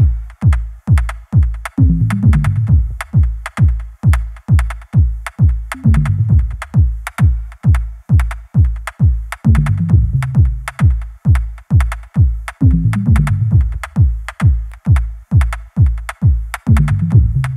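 Electronic dance background music with a steady four-on-the-floor kick drum, about two beats a second, over a bass line.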